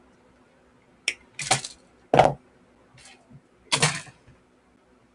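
Sharp snip of pliers cutting a short piece of ABS 3D-printer filament about a second in, followed by a few clicks and clatters of hand tools being handled and set down on a wooden workbench. The loudest is a duller knock about two seconds in.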